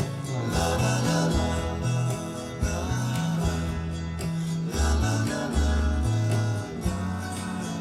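Background music: a pop-country song with strummed acoustic guitar over a moving bass line.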